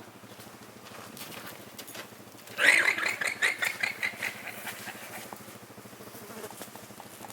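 Llama alarm call: a loud burst of rapid, repeated high-pitched braying pulses, starting about two and a half seconds in and fading out over about two seconds.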